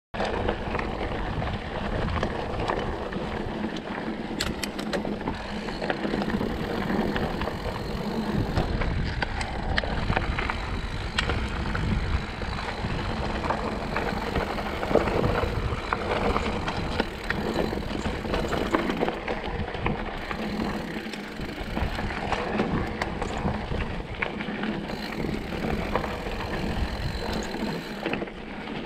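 Mountain bike being ridden over rocky dirt singletrack: a steady crunching rumble of tyres on dirt and loose stones, with frequent clicks and rattles from the bike over the rough ground.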